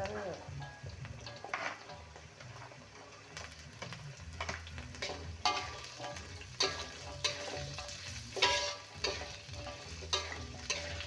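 Metal spatula scraping and knocking against a thin metal wok as carrot strips are stir-fried in oil with spice paste, with a low sizzle underneath. The scrapes and knocks come irregularly, a little over one a second in the second half.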